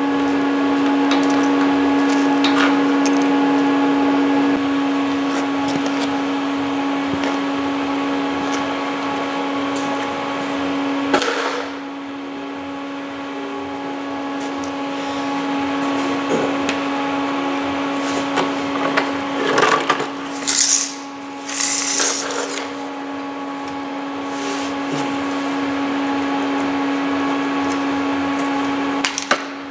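Wire-feed (MIG) welding arc crackling steadily for about eleven seconds, then stopping, over a steady machine hum that carries on throughout. A few short, sharp noises come near the two-thirds mark.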